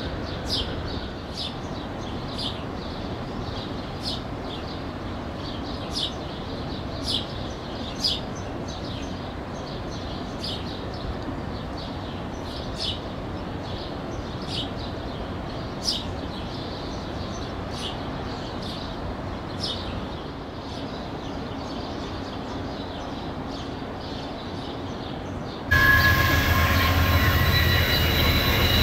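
Low rumble of a train pulling away, with short, sharp high ticks scattered through it. About 26 s in, it cuts abruptly to a much louder sound: an Amtrak GE Genesis diesel locomotive rounding a curve, with its wheels squealing in several steady high tones over the low rumble of the engine.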